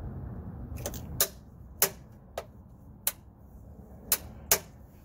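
About seven sharp, irregularly spaced clicks and taps of a hand tool and small parts being worked against metal as a component is fitted in a wiring compartment.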